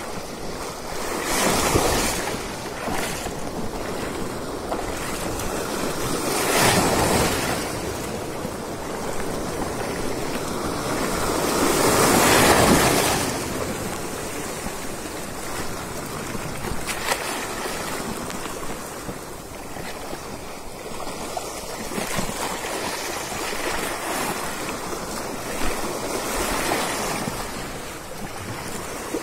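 Shallow sea surf washing over a rocky shore, a continuous rush of water with wind, swelling louder three times as waves wash through.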